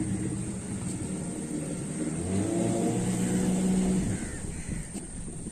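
Motorboat engine running, growing louder for a couple of seconds and then easing off sharply about four seconds in.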